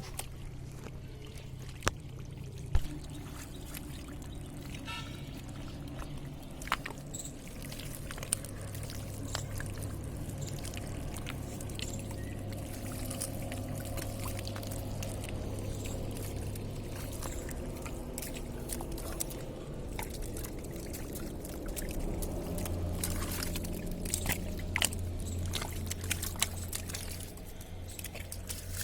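Water pouring and trickling steadily, over a low steady hum that grows stronger near the end, with a few sharp clicks.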